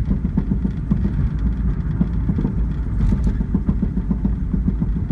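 Cabin noise of a 2000 Honda Civic on the move: the engine running under a steady low road rumble, with many small irregular ticks and rattles and no loud pop.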